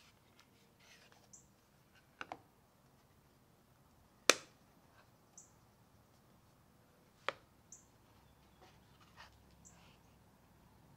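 Small wooden fly boxes being handled and set down on a wooden tabletop: a few sharp wooden knocks, a quick double one a couple of seconds in and the loudest about four seconds in, with lighter clicks between.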